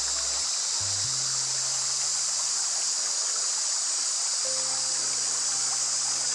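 Steady high-pitched hiss of forest ambience under background music of long held low notes that change pitch a few times.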